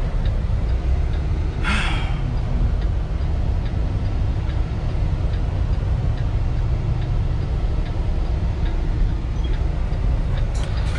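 Kenworth T680 semi truck running down the road, heard inside the cab: a steady low engine and road rumble, with a short hiss about two seconds in.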